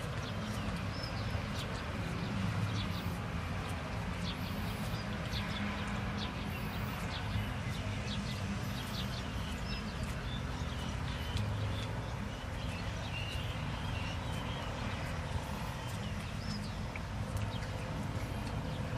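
A small knife slicing a hand-held cucumber, a run of short crisp cuts as slices drop into a metal bowl, over a steady outdoor background noise.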